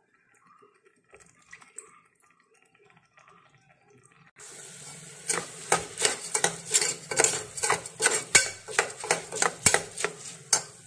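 Steel ladle stirring rice in an aluminium pressure cooker, knocking and scraping against the pot about three times a second, starting about five seconds in. A steady hiss begins suddenly just before the stirring.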